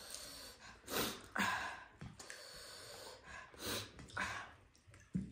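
Several short, sharp, noisy breaths and sniffs from people eating extra-spicy noodles, with a short thump near the end.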